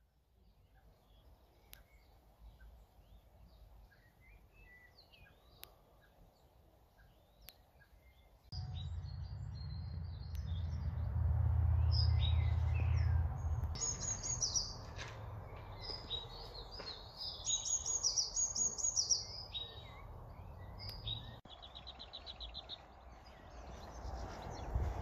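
Wild birds singing and chirping, with a fast trill near the end. About a third of the way in, a steady low rumble starts abruptly and is the loudest sound until it cuts off a few seconds before the end.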